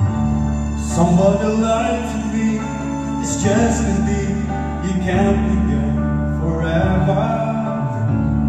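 Male contestant singing into a corded handheld microphone over an instrumental backing track; his voice comes in about a second in, after the accompaniment alone.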